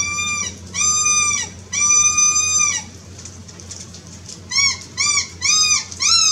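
Electronic predator caller playing a recorded animal distress cry: high, whining calls, each held steady and then dropping in pitch at the end. Three longer calls come first, then after a pause four short ones in quick succession.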